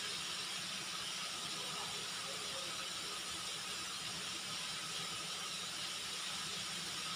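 Chicken frying in a wide pan of hot oil: a steady, even sizzle, with a low steady hum beneath it.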